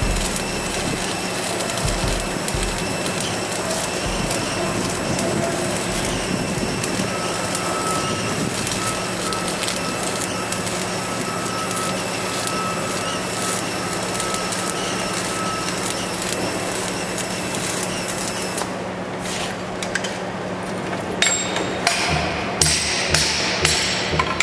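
Electric arc welding on a steel rail: the arc crackles and hisses steadily, then stops about 19 seconds in. Near the end a run of sharp knocks follows.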